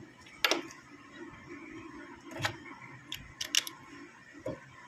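Small plastic-and-metal clicks of a spark plug cap being handled and pushed onto a spark plug that has worked loose: one sharp click about half a second in, then several lighter clicks over the last two seconds.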